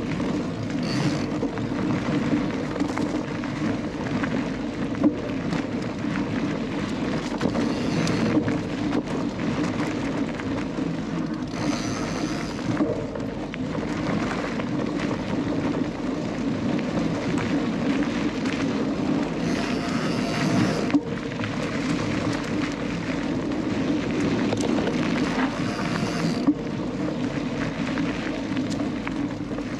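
Canyon Lux Trail mountain bike ridden along a forest singletrack: a steady rumble of the tyres on the trail, with short knocks and rattles over bumps. There are brief brighter hissing stretches about twelve and twenty seconds in.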